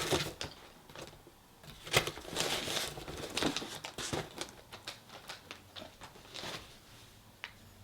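Plastic snack packaging crinkling and rustling as it is handled, with scattered sharp clicks and taps; the busiest rustling comes about two seconds in, and it dies away near the end.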